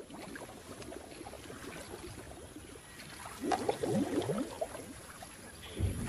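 Muddy water sloshing and gurgling in a mineral pool worked by forest elephants. A quick run of gurgles comes a little over three seconds in, and heavier sloshing builds near the end.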